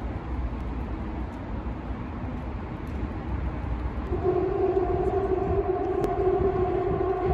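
Steady low rumble of distant city traffic. About four seconds in, a steady droning tone sets in and holds without changing pitch.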